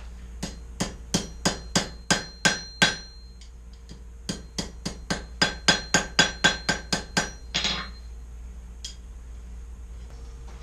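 Blacksmith's hammer striking hot 1/4 inch square steel bar on an anvil, flattening the end of the scroll, with the anvil ringing after each blow. The blows come in two runs of roughly three a second, with a short pause around a third of the way in.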